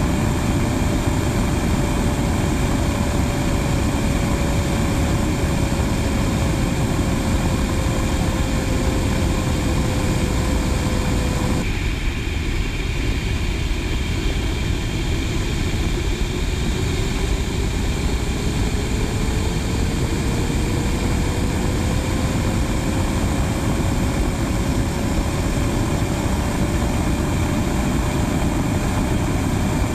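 F/A-18 Hornet jet engines and rushing air heard from outside the jet in formation flight: a steady, loud roar. Under the roar a faint whine slowly falls in pitch; after a sudden change about twelve seconds in, the whine slowly rises again.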